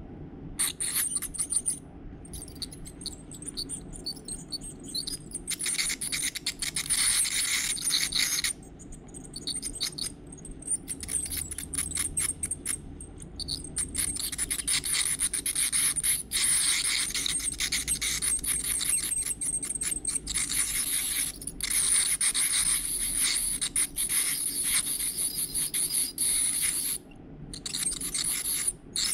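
Powered ultrasonic dental scaler scraping tartar off a dog's teeth. A high, thin whine carries rasping, crackly scraping as the tip works the tartar loose, in stretches of a few seconds with brief pauses between them.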